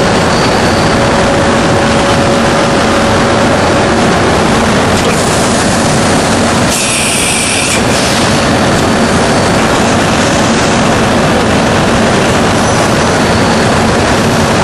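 CM565D bridge-type high-speed machining center running with a loud, steady mechanical noise. About seven seconds in, a short burst of hiss lasts about a second.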